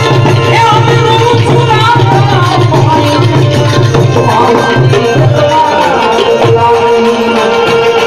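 Live Indian devotional song: a man singing into a microphone over a harmonium's steady reeds and a rope-laced hand drum keeping a quick beat. The drum drops out briefly twice in the second half.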